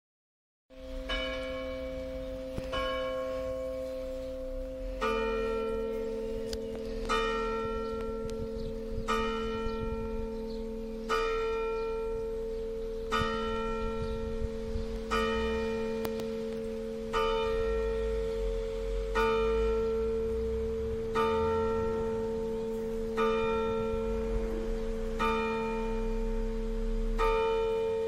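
Church tower bells ringing, starting suddenly about a second in, with a strike about every two seconds and a long hum ringing on between strikes. A second, lower bell joins about five seconds in.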